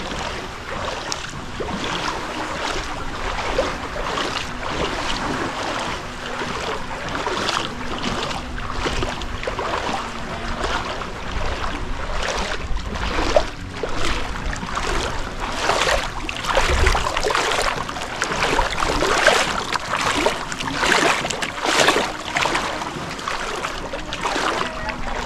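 Shallow seawater splashing and sloshing around feet wading through it, in a rhythm of roughly one step a second that grows louder in the second half, with wind rumbling on the microphone.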